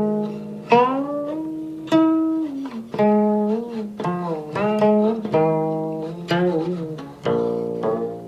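Background music: a plucked string instrument playing a slow melody, one note about every second, several notes bent up and down in pitch.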